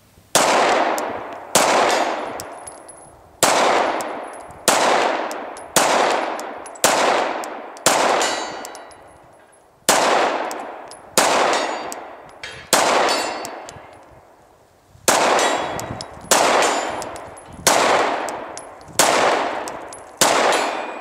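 Glock 19 Gen 4 9mm pistol firing 115-grain UMC ammunition in slow, deliberate single shots, about sixteen in all, one every second or so with a few longer pauses. Each loud crack is followed by an echo that dies away over about a second.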